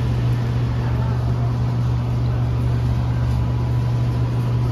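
Steady low drone of road and engine noise inside a moving car's cabin.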